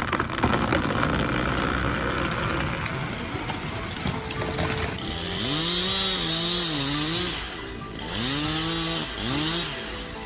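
Chainsaw running. About five seconds in it revs up and down in two stretches, with a short drop in between.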